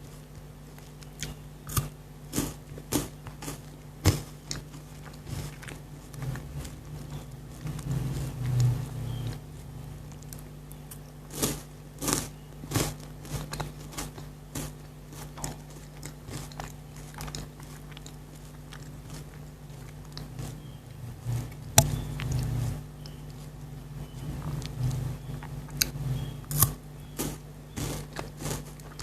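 Close-miked biting and chewing of a Kit Kat chocolate wafer bar: sharp, irregular crunches in clusters, with pauses of softer chewing between them, over a steady low hum.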